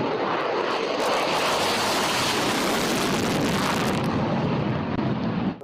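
Fighter jet engine noise, a steady rushing sound that cuts off suddenly near the end.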